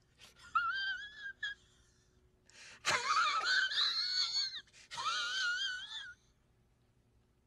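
High-pitched wheezing wails: a few short squeals, then two longer drawn-out cries that wobble in pitch, stopping about six seconds in.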